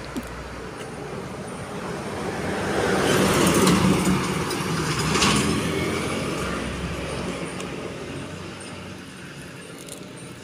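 A motor vehicle passing on the road, its engine and tyre noise growing louder, peaking about four seconds in, then fading away.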